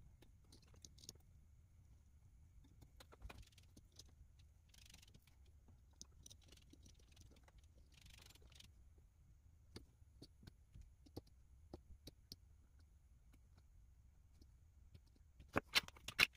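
Light clicks, taps and rustles of hands handling a small drone's frame, wires and plastic connector. A burst of sharper clicks and knocks comes near the end.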